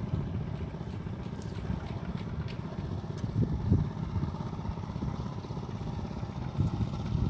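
Small engine of a walk-behind rice transplanter running steadily while planting rice seedlings in a flooded paddy; a low, uneven drone.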